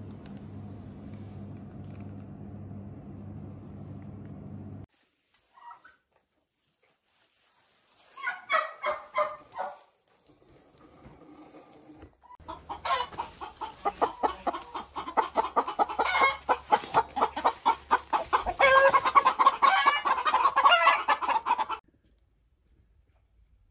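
A steady low hum for the first few seconds, then a short run of rapid calls, then a flock of poultry clucking and calling loudly and densely for about nine seconds before it cuts off suddenly near the end.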